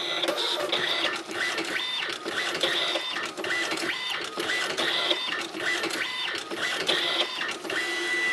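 Alps MD-5000 thermal-transfer printer printing a test page: its print mechanism runs in short repeated passes, a motor whine starting and stopping a little more often than once a second with clicks between, as the sheet feeds out line by line.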